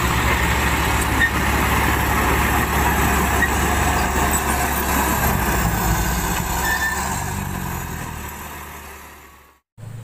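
Heavy diesel engine of a dump truck or crawler dozer running steadily with a low drone, fading out near the end.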